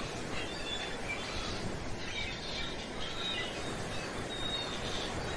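Background nature soundscape: birds chirping and whistling faintly here and there over a steady wash of sea surf.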